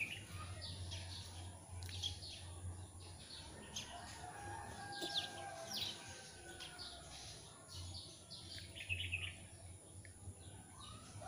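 Small birds chirping again and again, with a rooster crowing faintly about halfway through.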